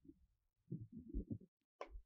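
Light tapping on a screwdriver clamped in a vise during assembly: a quick cluster of soft, muffled knocks about two-thirds of a second in, then one sharper tap near the end.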